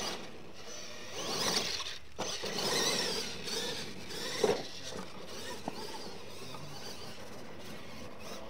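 Radio-controlled monster truck driving on a dirt track, its motor and drivetrain whining up and down with the throttle over tyre and dirt noise, with one sharp knock about four and a half seconds in.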